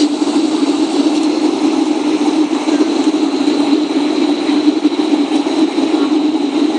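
Cabin noise of a Boeing 757 on its landing approach: steady engine and airflow noise with a thin, high whine held throughout.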